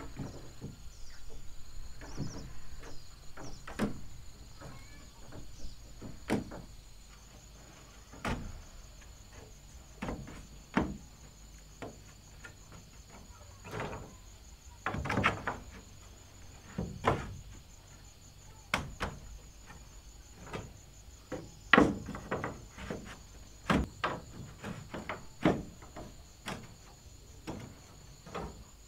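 Bamboo slats knocking and clattering against a wooden railing frame as they are slotted in by hand: irregular sharp knocks every second or two, with a few louder clusters. A steady high insect drone continues in the background.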